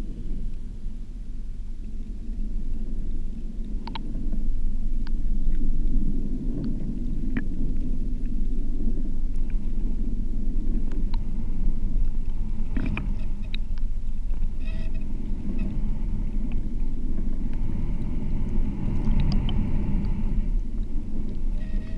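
Low, steady underwater rumble of water surging over a shallow sandy seabed, heard through a camera housing, with scattered sharp clicks.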